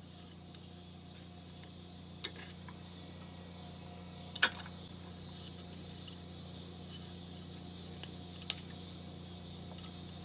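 Three sharp metallic clicks, spaced a few seconds apart, as piston rings are worked off a lawnmower engine's piston by hand. A steady low hum runs underneath.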